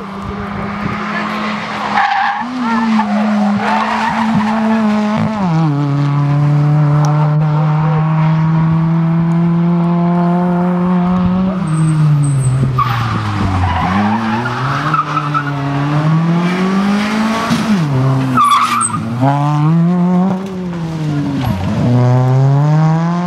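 Hyundai i20 rally car engine at high revs, holding a steady pitch and stepping down abruptly, then dipping and rising over and over as the driver lifts off and accelerates through corners.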